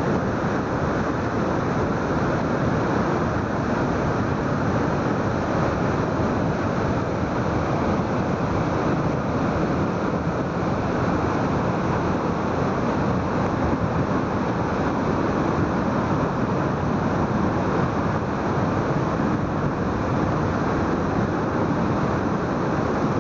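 Flash-flood water rushing and pouring down a canyon waterfall, a steady, even rush of water noise with no let-up.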